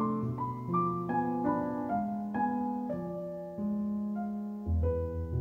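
Calm, soothing background music on piano: a slow melody of struck notes that ring on and overlap, with a deep bass note coming in near the end.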